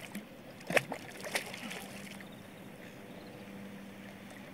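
Water splashing at the surface beside a kayak as a hooked fish thrashes, with a few sharp splashes about a second in, then quieter water.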